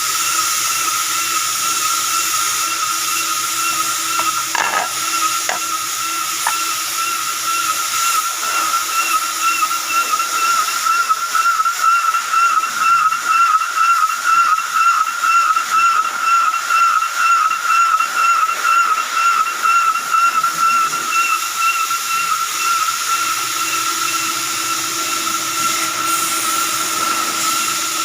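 Steady high-pitched machine whine over a constant hiss from a lathe setup during manual keyway slotting of a clutch disc brake's shaft bore. In the middle the whine wavers and pulses about twice a second.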